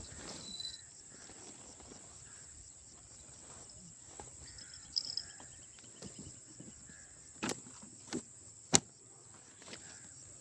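Insects chirring in a steady high-pitched drone. About halfway there is a brief run of fast ticks, and near the end three sharp clicks, the last one loudest.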